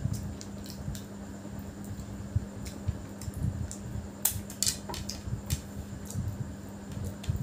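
Close-up sounds of eating biryani by hand: chewing with wet mouth clicks, and fingers gathering rice on a plate, over a steady fan hum. The clicks come irregularly, sharpest in a short cluster a little past halfway.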